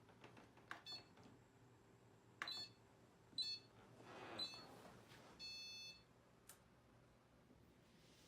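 Faint short clicks and chirps, four of them a second or so apart, then an electronic beep held for about half a second.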